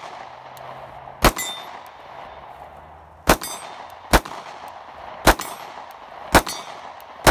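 Sig P365 9mm subcompact pistol fired six times, mostly about a second apart, each shot followed by a short metallic ring. The pistol cycles without a stoppage while the shooter's thumb rides the slide.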